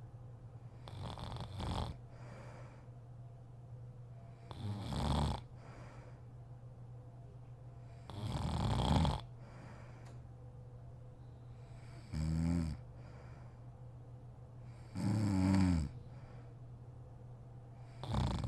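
A sleeping woman snoring: six snoring breaths, about one every three and a half seconds, some breathy and some with a buzzing pitch, over a steady low hum.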